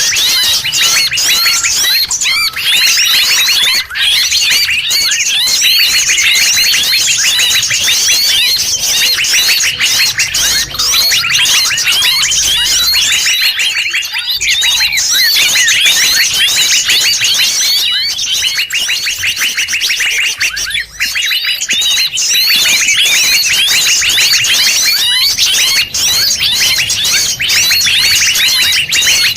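Mixed forest bird lure call: a dense, continuous chorus of many overlapping bird chirps and trills, several species calling at once, as used to draw wild birds in.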